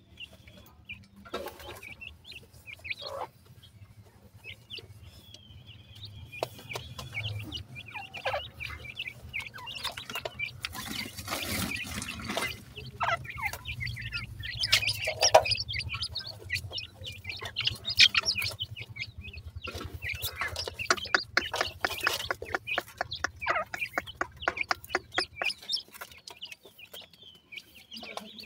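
Young francolin (teetar) chicks give short chirps and clucking calls while pecking at crumbly feed, with rapid tapping clicks of beaks on the feed and tub. A low steady hum underneath stops near the end.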